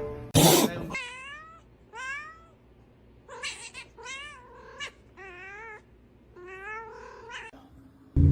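A domestic cat meowing over and over: six or seven drawn-out meows whose pitch bends up and down. A short, loud burst of noise comes about half a second in.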